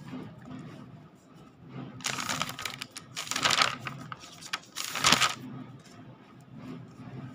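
Paper pages of a notebook being turned by hand, rustling in a few bursts: one about two seconds in, a longer one around three and a half seconds, and a short sharp one about five seconds in.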